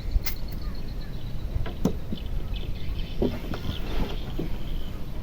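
Small river boat getting under way: a steady low rumble of wind and water, with several knocks of gear against the wooden hull.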